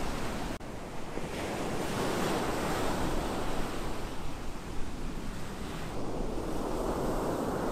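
Ocean surf breaking on a beach, with wind rushing over the microphone. A brief drop-out about half a second in.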